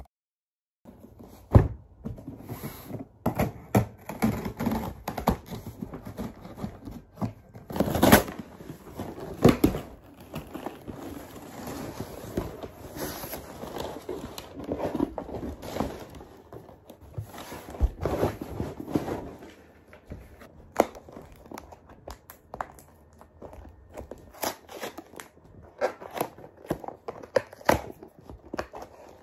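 Close handling sounds: crinkling and rustling with scattered taps and knocks, a few sharper knocks standing out among them.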